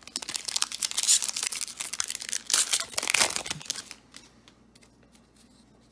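A Magic: The Gathering Kaldheim Collector Booster pack's foil wrapper being torn open and crinkled by hand, a dense crackling for about three and a half seconds. It then goes much quieter, with a few faint clicks as the cards are handled.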